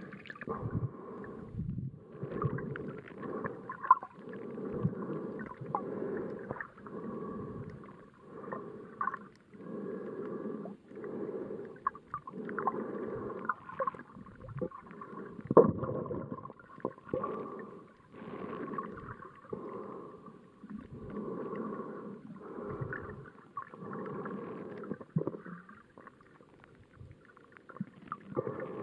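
Muffled water sounds picked up by a camera underwater near the surface: sloshing and gurgling that swells and fades every second or two, with a few sharper knocks.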